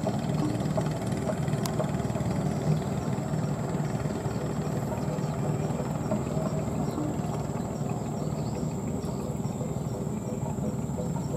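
Boat engine running steadily while underway.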